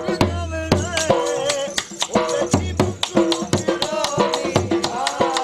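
Dhol drum played live in a fast, steady jhoomer beat, with a melody line over it.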